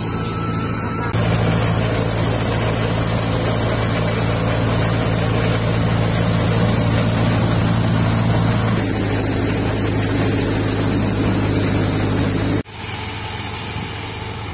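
Tractor-driven wheat thresher running at work: a steady engine drone under the machine's whirring and rushing noise. The note shifts about nine seconds in, and near the end the sound drops out sharply and comes back quieter.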